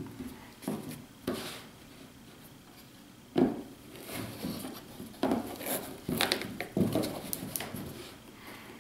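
Handling noise as a folded 3D-printed 4x5 field camera is set down into its foam-lined box: scattered knocks, taps and rustles, the loudest a single thump about three and a half seconds in, then a busy run of small taps and clicks from about five to nearly eight seconds.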